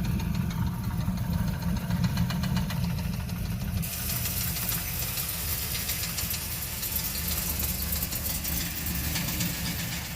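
Chevrolet LS1 5.7-litre V8 of a Camaro Z28 idling with a steady, rhythmic knock from a spun connecting-rod bearing. A high hiss joins about four seconds in.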